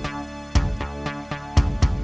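Instrumental synthesizer music: held synth chords and bass under a steady, evenly spaced drum beat.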